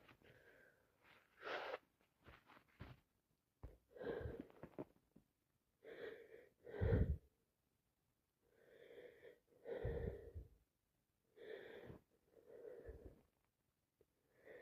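A person's sneezing fit: a string of short gasping breaths and sneezes, about one every second or two, the loudest two near the middle.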